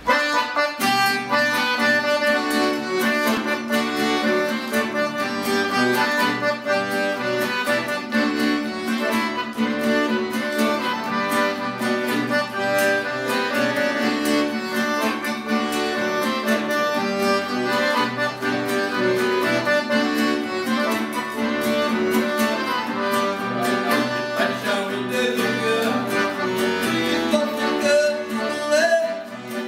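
Piano accordion leading an instrumental passage over acoustic guitar accompaniment, in Brazilian sertanejo raiz style.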